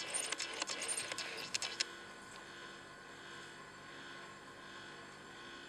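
Light clicks and taps of magnetic letter cards being handled and pressed onto a refrigerator door during the first two seconds, then only a faint steady hum.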